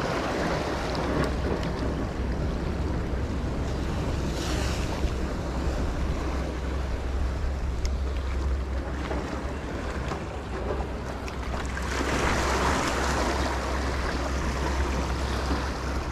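Seawater washing against rocks, with wind rumbling on the microphone; a louder surge of water about twelve seconds in.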